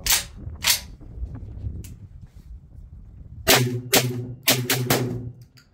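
Tokarev TT12 semi-automatic 12-gauge shotgun firing Winchester AA 1250 fps shells: two shots about half a second apart, then after a pause of nearly three seconds a quick string of several more. The shotgun is cycling these lighter target loads from its five-round magazine.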